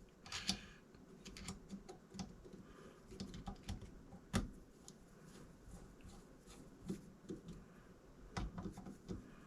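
Light, irregular clicks and taps of small screws being started by hand in the top caps of scope rings, with one sharper click a little over four seconds in.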